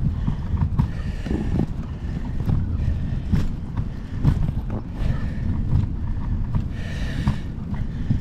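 Wind buffeting the action camera's microphone while cycling, a steady low rumble with frequent short clicks and knocks from the ride over the sidewalk. A faint high whine comes and goes about a second in and again near the end.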